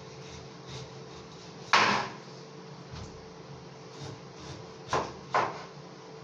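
Three knocks on a wooden kitchen surface while a pineapple is peeled and handled: one loud knock about two seconds in, then two quicker ones close together near the end, over a faint steady hum.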